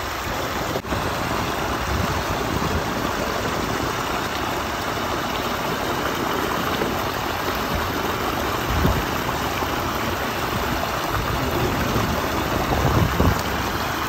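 Creek water pouring over a low concrete weir and churning into white water below, a steady rushing. A couple of brief low rumbles rise through it near the middle and near the end.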